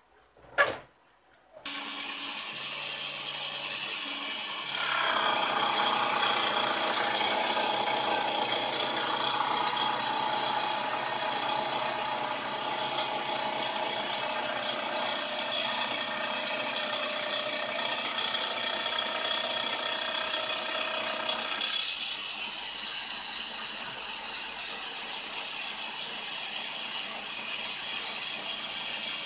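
Angle grinder with a carbide-tipped circular saw blade, mounted on a CNC router, starts running about two seconds in with a steady high whine. From about five seconds the blade cuts through aluminium plate under coolant, adding a harsher cutting noise. This eases back to the whine of the free-running blade about seven seconds before the end.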